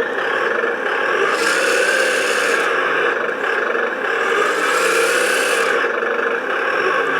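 Simulated engine sound from an RC crawler's onboard sound module, played through its small speaker: a steady idle that swells twice, about a second and a half in and again about four and a half seconds in, each time with a rising hiss.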